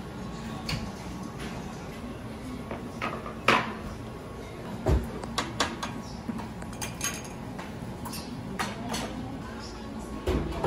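Buffet-room clatter: scattered clinks and knocks of dishes, serving tongs and cutlery over a steady background hum, with a louder clack about three and a half seconds in and another about five seconds in. Faint voices of other diners sit underneath.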